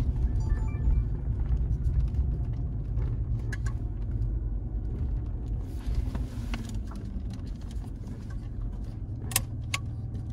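A car driving, its engine and road noise a steady low rumble heard from inside the cabin, with two sharp clicks about nine and a half seconds in.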